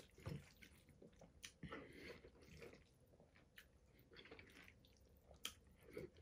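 Faint close-up eating sounds: a man chewing mouthfuls of pasta in meat sauce, with a few soft clicks of a fork against a stainless steel bowl.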